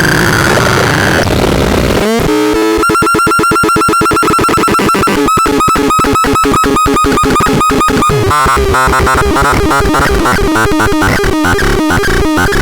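Electronic noise synthesizer playing harsh, glitchy tones: a noisy warble gives way about three seconds in to a fast stuttering pulse, about ten a second, over held pitches, which breaks around eight seconds in into jumpy, shifting bleeps.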